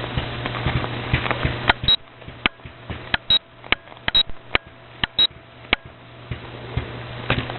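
A run of sharp clicks at uneven intervals, roughly two a second, starting about a second and a half in and stopping near six seconds, with a short high beep alongside four of them, over a low steady hum.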